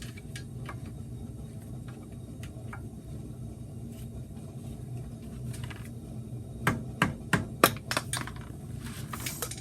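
A hammer tapping a flathead screwdriver to drive off the dust cap on a Ford Mustang's front wheel hub. A few light clicks, then about six quick, sharp metal strikes close together starting roughly seven seconds in.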